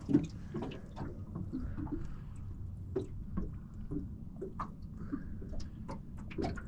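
Small waves lapping and splashing against a small boat's hull, irregular little slaps and drips over a steady low rumble of wind.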